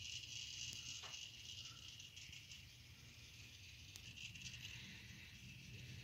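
Near silence: faint room tone with a steady high hiss and a low hum, and a few light clicks.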